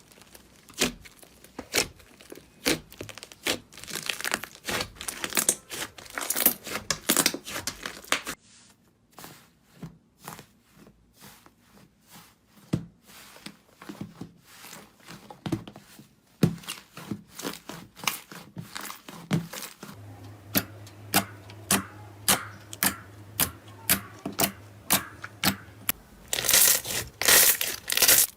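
Slime being squeezed, poked and stretched by hand, giving a run of sharp crackling pops and clicks. The texture changes abruptly a few times, with a spell of regular pops about twice a second and denser, louder crackling near the end.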